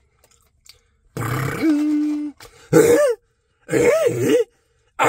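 A man's wordless comic vocal noises: about a second in, a groan that slides up into a held note, then shorter yelps that swoop up and down in pitch, with another starting near the end.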